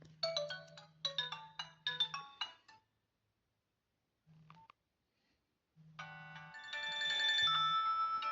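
Nokia 106 mobile phone playing its built-in ringtones through its small speaker. A short phrase of quick descending notes sounds three times about a second apart, then comes a brief single tone. Near the end a different, fuller ringtone starts and grows louder.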